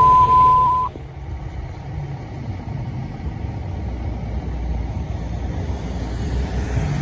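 A loud, steady single-pitch radio dispatch alert tone cuts off about a second in, marking a priority fire alarm. After it, a fire truck's engine runs with a steady low rumble.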